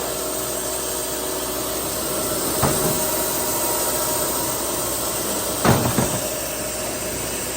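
Baker band sawmill running and cutting through a cant, a steady mechanical drone with a faint whine. A short knock comes about two and a half seconds in, and a louder double knock a little before six seconds.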